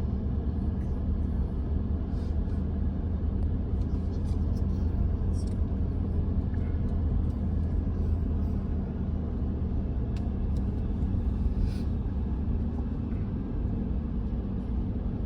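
A truck driving along a road, with a steady low rumble from its engine and tyres.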